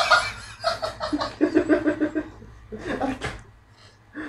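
A group of men laughing and chuckling in short, rapid bursts, dying down near the end.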